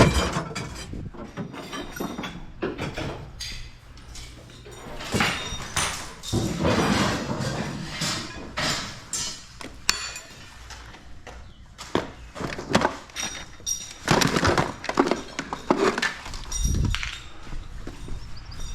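Pieces of scrap metal being handled and loaded: irregular clanks, rattles and knocks with scraping, and a heavier low thud near the end.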